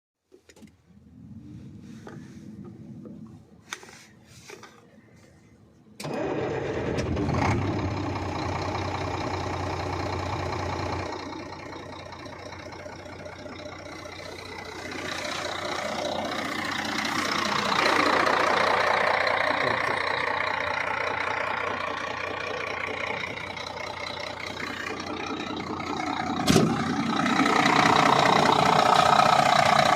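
Scania 4-series 380 PDE truck diesel engine starting: a few seconds of faint whine and clicks, then it fires about six seconds in and runs at a fast idle that settles after a few seconds. The engine speed is then raised, getting louder again near the end, with a single sharp click.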